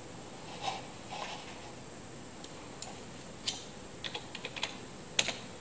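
Light clicking on a computer over a faint steady hiss: a single click, then a quick run of about six clicks, then one sharper click near the end.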